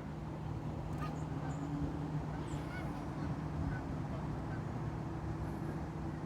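Canada geese honking, a handful of short, scattered calls, over a steady low hum.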